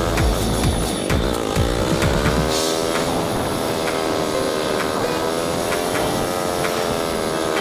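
Yamaha SR single-cylinder motorcycle engine running on the move, its pitch rising and falling with the throttle. A heavy low rumble fills the first two and a half seconds, then drops away.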